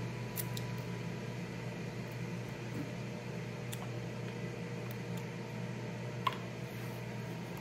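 Steady low hum of kitchen room noise, with a few faint clicks of a metal spoon in a plastic bowl as soup is eaten, the clearest about six seconds in.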